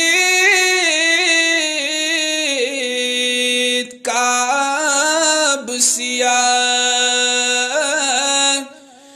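A man singing a Kashmiri naat in long, drawn-out notes that waver and turn in pitch, with a short break about four seconds in and another near the end.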